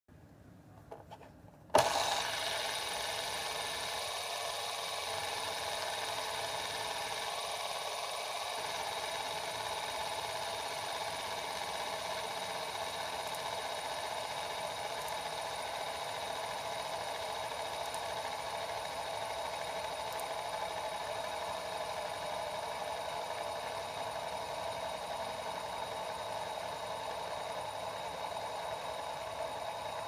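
Aluminium bar-type fidget spinner flicked into spin with a sharp click about two seconds in, then whirring steadily on its centre bearing with a constant high tone.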